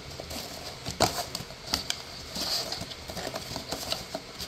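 Cardboard packaging handled by hand: rustling and scraping of the box and its inner tray, with scattered taps and knocks, the sharpest about a second in.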